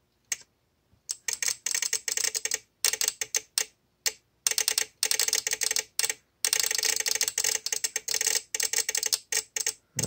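Relay on a VXT-24 boiler water-feeder control board clicking rapidly and erratically, starting about a second in with a few short pauses. The erratic clicking is the sign of a false feed signal reaching the board through the manual-feed override, from a feed switch shorted by dripping water.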